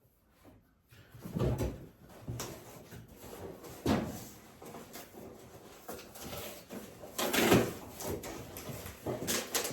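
Irregular knocks, clunks and scrapes of objects being handled and moved about, starting about a second in.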